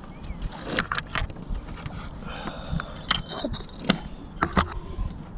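Wind buffeting the microphone under scattered sharp clicks and knocks of handling gear while holding up a caught red drum on a lip grip aboard a kayak; the loudest knock comes about four seconds in.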